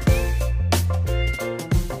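Instrumental background music with a steady beat: drum hits over a bass line and held melodic notes.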